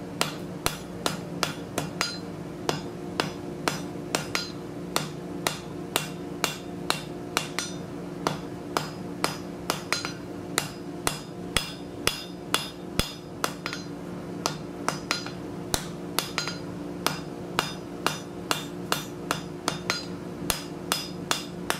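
Hand hammer blows on a glowing steel scroll lying on the anvil face, forge welding the branch joint. They come as a steady run of about two to three strikes a second, each with a bright metallic ring.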